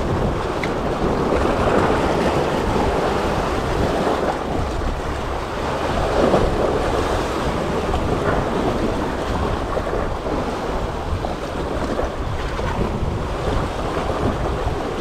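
Wind buffeting the microphone over the steady wash of choppy sea waves.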